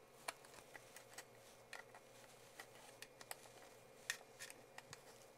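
Faint, irregular small clicks and taps of a hex wrench turning an electrical nut on a camera's cable gland, against near silence.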